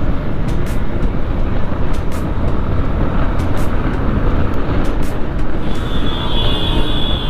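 Suzuki Intruder 150 motorcycle's single-cylinder engine running at riding speed, with heavy wind rush over the microphone. A high steady tone comes in near the end.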